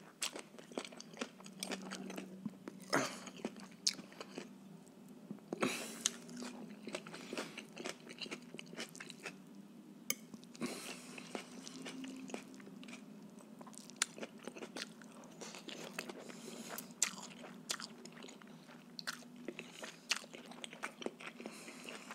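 Close-miked chewing and mouth sounds of a man eating rice noodles, with scattered short clicks of a fork against the plate as he twirls more noodles.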